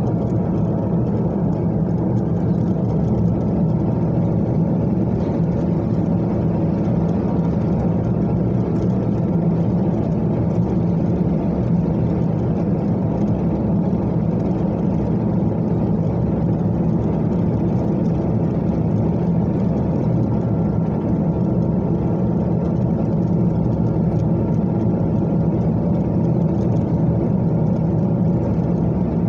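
Steady running noise of a car cruising along an open road, a low rumble of engine and tyres heard from inside the car. It stays even throughout, with no change in speed.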